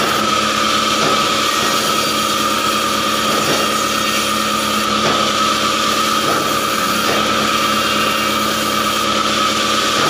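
Band sawmill running steadily, its blade cutting lengthwise through an acacia log, with a constant high whine over the machine's hum.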